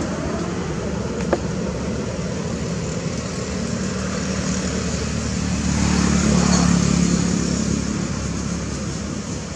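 Steady engine noise from road traffic, growing louder about six to seven seconds in, with one sharp click about a second in.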